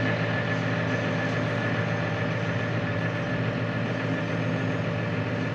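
Farm machinery engine running at a steady speed, with a faint steady whine above it.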